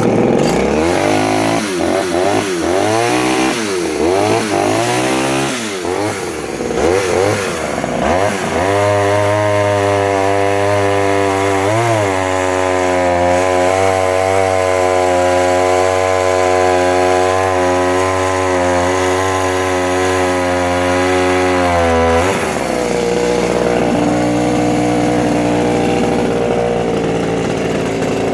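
Vintage Pioneer P20 51cc two-stroke chainsaw catching and running. It is revved up and down for several seconds, then held at steady full throttle for about thirteen seconds while cutting, then drops back to idle about 22 seconds in. The owner judges the carburettor setting slightly rich.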